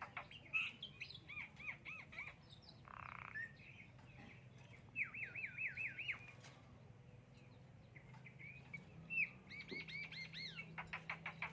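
Javan myna calling in several runs of quick, repeated hooked chirps, with a short harsh rasp about three seconds in.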